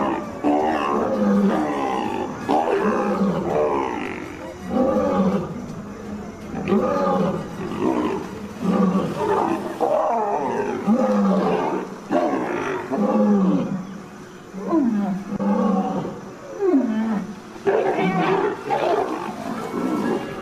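Leopard growling and snarling in repeated loud calls, about one a second, some sliding down in pitch.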